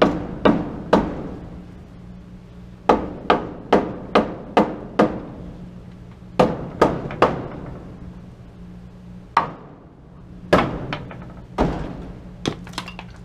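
Hammer driving nails into the wooden top plates, in runs of sharp strikes about two or three a second, with short pauses between nails. A faint steady low hum runs underneath.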